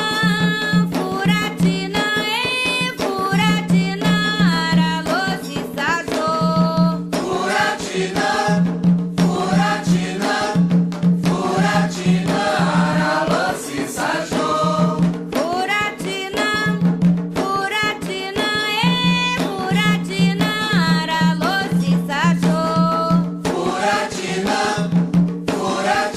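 Candomblé song for Xangô: voices singing in chorus over steady drumming.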